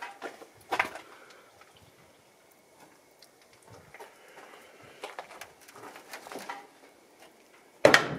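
A few faint clicks, then near the end the steel hood of a 1968 Chevrolet Impala slams fully shut with a loud metallic bang that rings on for about a second.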